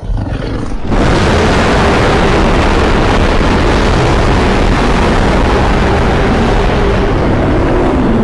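Custom sound-effect roar of a giant monster: a loud, rumbling, noisy roar that swells in over the first second and then holds steady.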